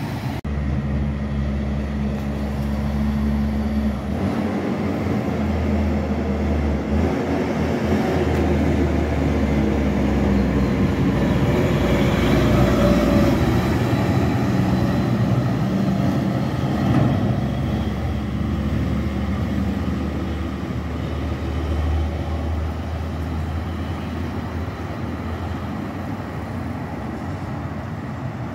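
Road traffic passing: engines of cars and a heavy Shacman dump truck running as they go by, rising to the loudest point about halfway through as the truck passes.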